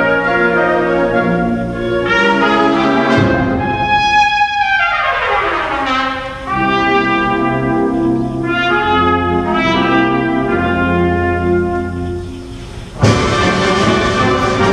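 Concert wind band playing with a solo trumpet: held brass chords, a long falling run about four seconds in, then a sudden loud entry of the full band near the end.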